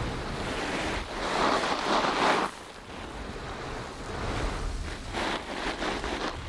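Wind buffeting the microphone with a low rumble. A louder stretch of rustling runs from about a second in to about two and a half seconds, and a quick run of crackly rustles comes near the end.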